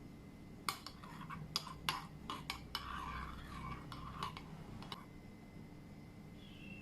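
Kitchenware clicking and knocking: about ten sharp strikes over some four seconds, some with a short ring, then it stops about five seconds in.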